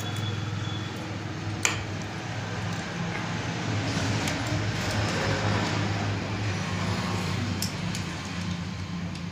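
Small metal clicks and scrapes of a screwdriver driving screws into a Honda Activa scooter's carburetor body, with one sharp click about a second and a half in. A steady low hum runs underneath.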